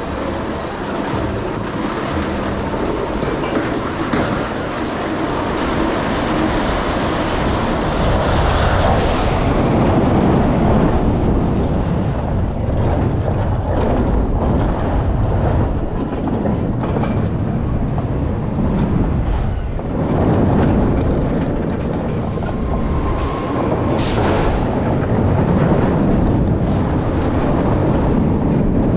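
Intamin roller coaster train running along its track, heard from a rider's chest-mounted camera: a continuous loud rumble that swells and eases with the ride.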